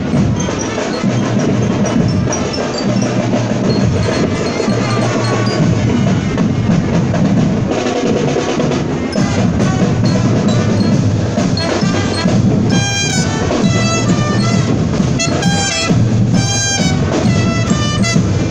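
Marching band playing in the street, with drums and percussion carrying a steady marching rhythm. A bright, bell-like melody, typical of a lyre glockenspiel, stands out in the second half.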